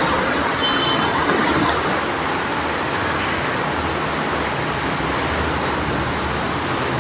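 Steady, even rushing background noise with no speech and no distinct events.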